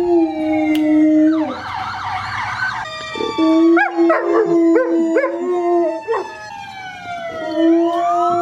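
Siberian husky howling: long, steady held notes that break off about one and a half seconds in and again near the end. Other dogs join in with higher, wavering calls and a run of short rising-and-falling yelps in the middle.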